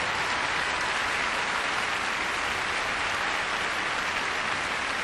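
Steady applause from a large arena crowd.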